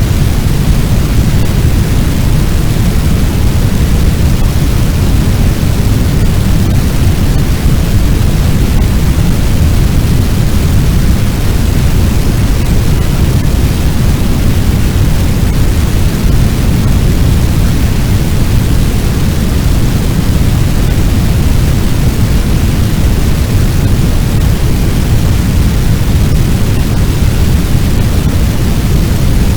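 Fire sound effect: a loud, steady, low rushing noise of a large blaze or fire wind, even throughout, with no separate crackles or pops.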